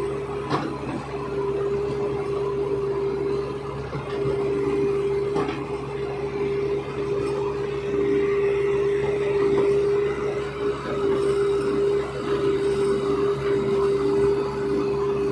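Diesel engines of a tracked excavator and a backhoe loader running steadily under load, with a constant high whine over a low hum. It grows a little louder about eight seconds in as the backhoe stuck in the mud is worked free.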